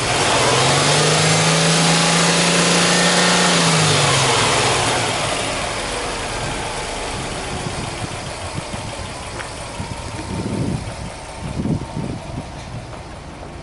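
Subaru Impreza WRX's turbocharged EJ20 flat-four engine is revved up sharply in a free rev, held at a steady high speed for about four seconds, then drops back to a steady idle.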